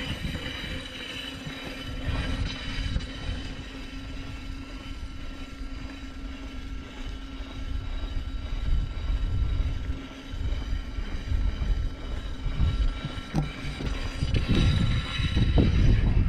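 Inmotion V10F electric unicycle rolling over brick paving, a steady whine over a low rumble of wind and wheel noise that grows louder near the end. A small stone is wedged between the unicycle's shell and its hub motor.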